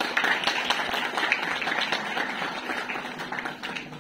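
Audience applauding: many hands clapping, starting suddenly and fading away toward the end.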